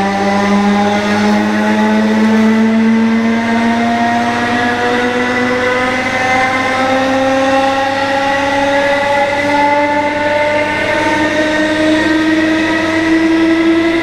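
British Rail Class 319 electric multiple unit's traction motors whining loudly as the train accelerates away from a station, several tones climbing steadily in pitch. About two-thirds through, a second whine comes in lower and climbs in its turn.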